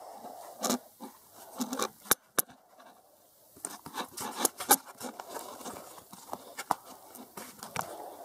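Irregular scuffs, scrapes and sharp clicks of a person moving about and handling gear, with a busier cluster about four seconds in.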